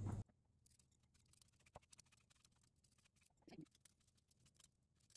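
Near silence with faint, irregular scraping ticks of a hand-held vegetable peeler cutting the skin off an apple; one slightly louder scrape about three and a half seconds in.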